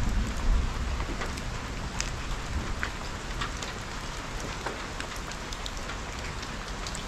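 Steady rain falling, with individual drops ticking sharply close by.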